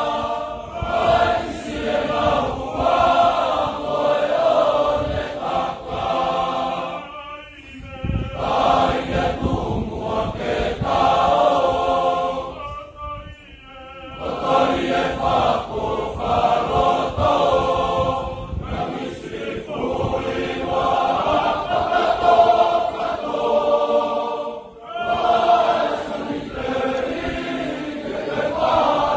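A large group of male voices singing together unaccompanied, many boys in chorus, in long sung phrases with brief pauses between them.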